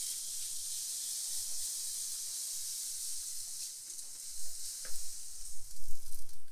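Steady high hiss of apple cider vinegar being spritzed from a spray bottle onto a smoking chuck roast and the hot grate of a charcoal smoker, sizzling as it lands. A few soft knocks near the end.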